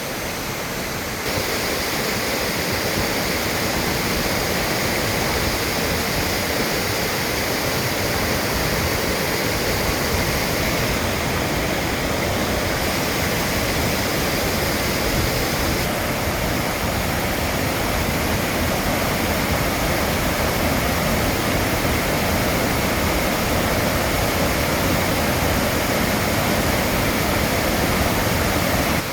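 Steady rush of flowing water, growing louder about a second in.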